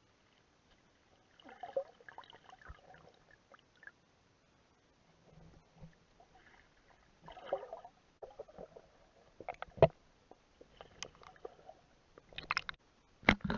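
Water sloshing and gurgling in irregular bursts, with a few sharp knocks, the loudest near the end.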